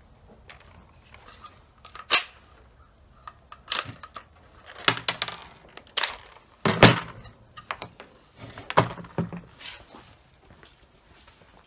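Irregular clicks and clunks of a GSG 522 .22 rifle being handled and cleared, the 110-round drum magazine worked and the rifle set down on a wooden bench. The loudest knock comes about seven seconds in.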